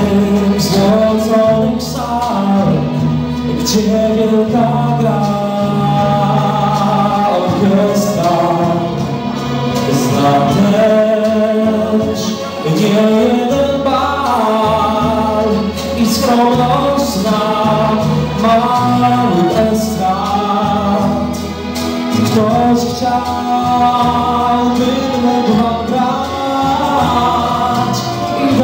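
A young male singer singing a song into a handheld microphone over an instrumental backing track with a steady bass line and beat.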